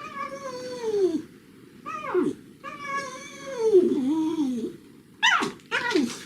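A Shiba Inu howling and whining: a long falling call, a short one, a long wavering call, then two short sharp calls near the end.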